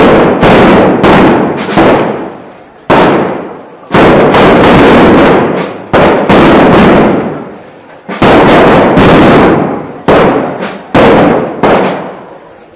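Loud explosive bangs going off one after another, roughly one a second and sometimes two in quick succession. Each bang sets off a long echo that fades out over about a second.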